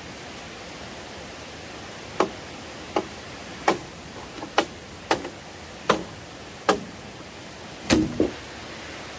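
Machete chopping at a felled bamboo pole: eight sharp, woody strikes starting about two seconds in, roughly one a second, the last a quick double hit, over a steady hiss.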